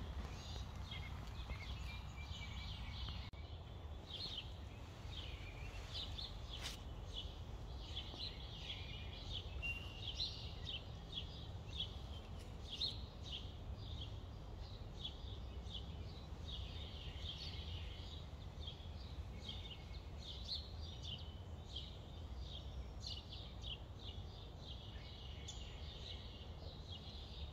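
Small songbirds chirping and calling over and over, many short notes, over a steady low background rumble.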